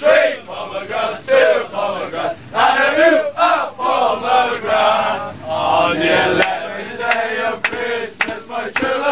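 A crowd of male football fans chanting and singing loudly together in a packed tram carriage, with sharp hits in the second half.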